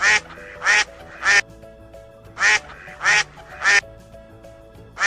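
Duck quacking in two quick runs of three quacks each, over soft background music.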